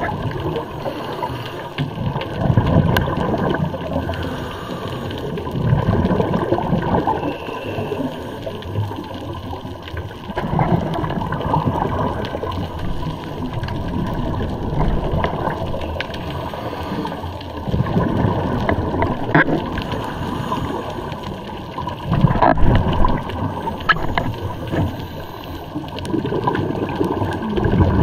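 Scuba diver's exhaled bubbles gurgling and rushing underwater in surges about every four seconds, the rhythm of regulator breathing, with a steady wash of water noise between them.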